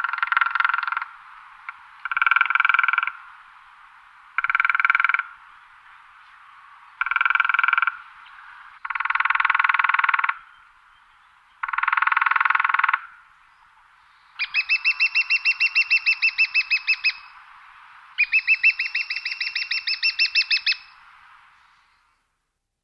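Woodpecker drumming on wood: a string of rapid rolls about a second long, each a couple of seconds apart. Near the end come two longer, slower rolls whose separate strokes can be told apart.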